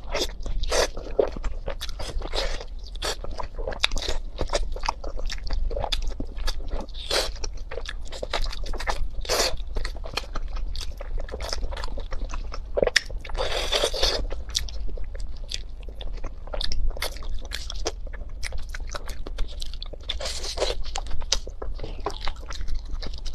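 Close-miked eating of pork tail: biting and wet chewing of skin, meat and gristle, heard as a dense run of short smacks and clicks, with a longer sucking sound about thirteen seconds in as meat is drawn off the tail with the lips.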